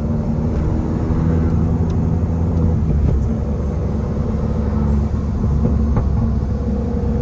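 Engine of a 2012 Mini Cooper Coupe John Cooper Works, a turbocharged 1.6-litre four-cylinder, pulling steadily in sport mode, heard from inside the cabin over road and tyre noise. The engine note changes about three seconds in.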